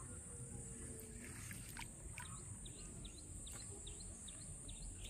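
Faint ambience with a bird chirping in a run of quick, short falling notes, over a steady high hiss and a low rumble.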